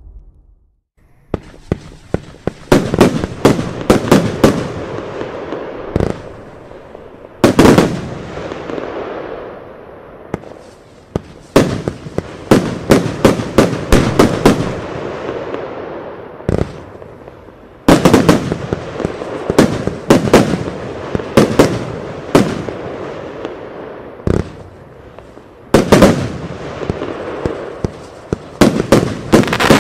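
Eurostar Fireworks 'Loco Loco' compound cakebox firing, starting about a second in. It sends out volleys of sharp shots in quick succession, each volley trailing off in a fading wash of noise before the next.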